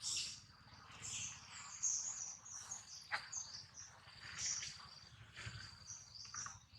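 Birds chirping repeatedly over a steady high-pitched insect drone, with a few sharp clicks.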